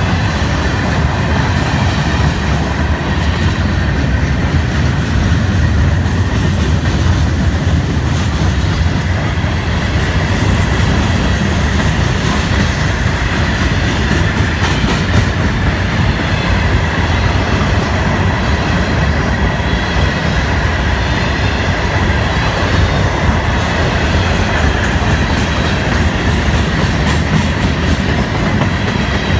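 Loaded hopper and gondola cars of a Florida East Coast Railway freight train rolling past close by: a steady rumble of steel wheels on rail, with a thin high wheel squeal held under it.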